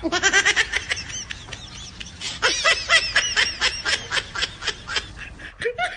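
High-pitched laughter in rapid repeated bursts, several a second.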